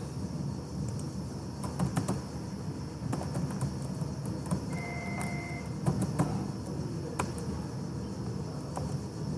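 Computer keyboard keys clicking irregularly as a command is typed, over a steady low background hum. There is one short, high electronic beep about halfway through.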